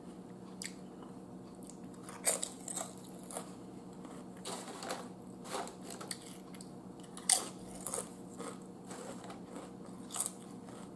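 Lay's potato chips being bitten and chewed close up: a series of short, crisp crunches with quieter chewing between, the loudest bites about a fifth of the way in and again about two thirds through.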